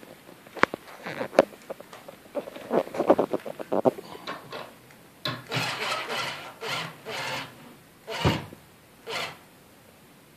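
Cordless drill driving a long screw through a wooden board in about six short bursts, the threads grinding through the wood. Before that, a few sharp clicks and a patter of knocks from handling the screw and tools.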